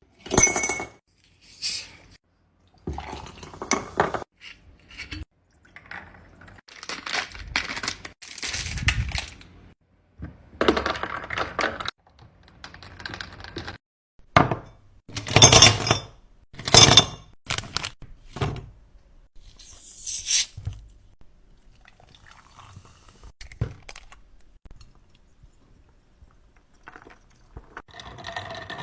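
Objects handled at close range: irregular knocks, clinks and rustles, some short clinks ringing briefly.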